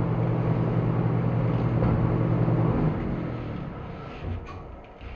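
A shop machine's electric motor running with a steady hum, then switched off about three seconds in and winding down. A couple of light knocks near the end.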